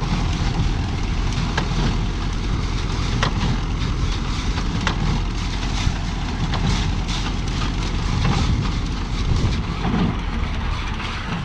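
Tractor running steadily with a New Holland 68 square baler working behind it, a sharp knock about every second and a half.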